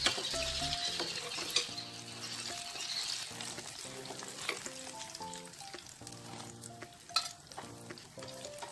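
Brinjal strips sizzling in hot sunflower oil, the sizzle strongest in the first few seconds and then easing, while a slotted steel skimmer clinks sharply against the pan a few times as the pieces are lifted out. Soft background music plays underneath.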